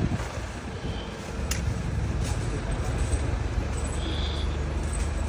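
Street traffic: a vehicle engine's steady low rumble, growing a little louder after the first second or two, with a sharp click about a second and a half in.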